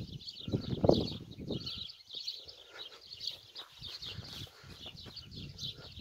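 Many small birds chirping together in a dense, steady chorus. A low rumble sits under it in the first two seconds, loudest about a second in, and returns near the end.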